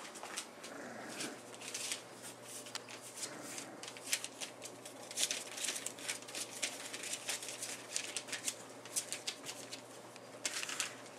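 Bullmastiff puppies scuffling together on a blanket: irregular scratchy rustling and ticking of paws and claws on the fabric.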